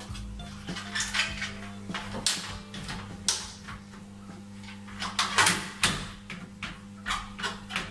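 Plastic grille cover of a ceiling exhaust fan being handled and pushed back into its vent opening: a series of irregular clattering knocks and clicks, busiest about five to six seconds in. Under them is a steady low hum of the exhaust fan running.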